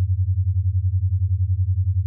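A steady low-pitched hum that pulses evenly about eight times a second.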